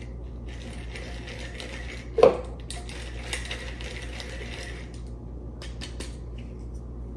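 Wooden pepper mill grinding black peppercorns with a gritty, ratcheting crunch for several seconds, then a few single clicks as the grinding stops. A single loud thump comes about two seconds in.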